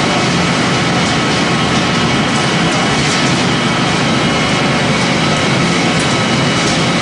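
A biomass pellet-making machine running for maize straw and corn stalk sawdust pellets, giving a loud, even machine noise that holds steady without changing.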